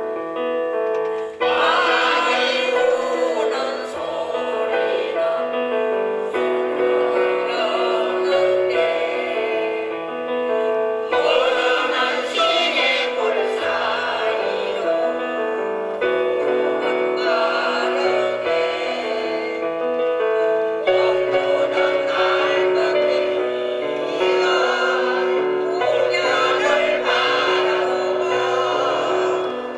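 Mixed vocal ensemble of older men and women singing a song in harmony, in sustained phrases.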